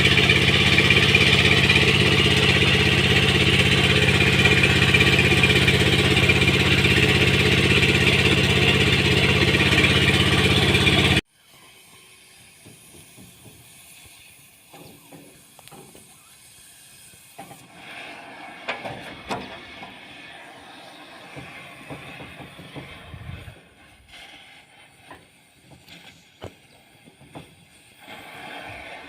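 An engine running steadily under a strong hiss; it stops abruptly about eleven seconds in. Afterwards only faint scattered clicks and knocks remain.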